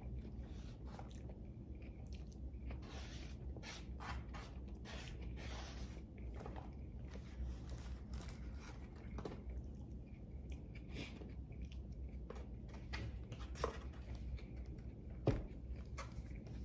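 Close-up chewing and mouth sounds of a person eating breakfast food, with irregular small clicks throughout. Two sharper clicks come near the end; the second is the loudest.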